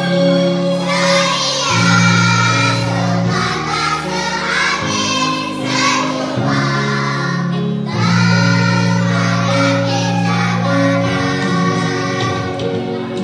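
A children's choir singing in phrases over instrumental accompaniment with long held bass notes.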